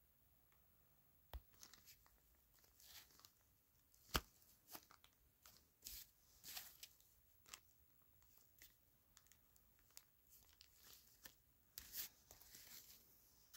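Plastic product packaging being handled, with scattered crinkles, short rustles and sharp clicks. The loudest is a single sharp click about four seconds in.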